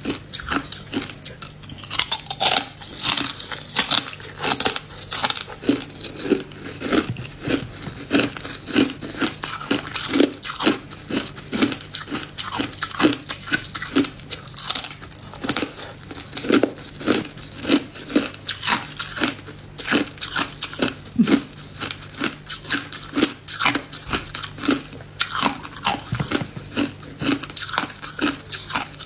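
A person biting and chewing hard clear ice: a steady run of sharp crunches, a few each second.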